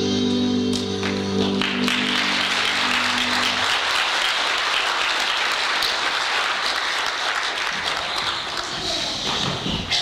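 Congregation applauding a children's choir as the music's last held chord rings out and stops about four seconds in. The clapping continues steadily, then cuts off suddenly at the end.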